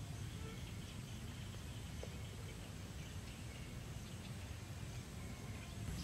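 Outdoor field ambience: a steady low rumble with faint, scattered bird chirps.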